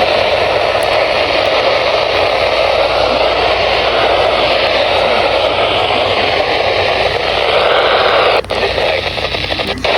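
Loud, steady radio static hiss from a receiver on poor reception, with no clear voice coming through. The signal drops out briefly twice near the end.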